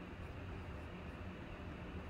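Steady low hum and hiss of background room noise, with no distinct event.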